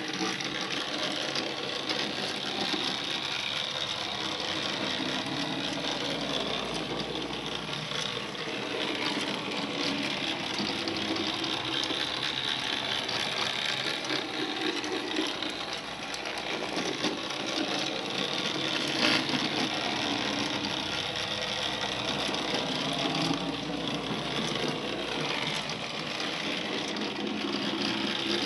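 Small battery-powered electric drive motors of Faller Car System model buses whirring steadily as the models drive, with one or two faint clicks.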